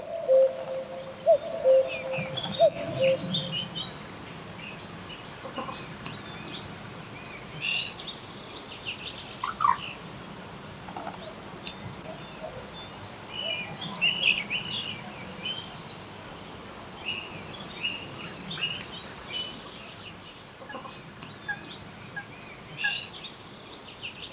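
Wild birds calling and singing: scattered short, high chirps and trills throughout, over a steady low background hiss. For the first three seconds or so, a louder, lower call of short notes repeats rapidly, then stops.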